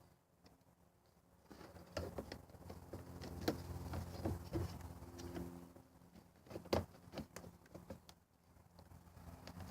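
Scattered clicks and knocks of a new power-window master switch and its plastic door-trim housing being handled and pressed into place, over a steady low hum.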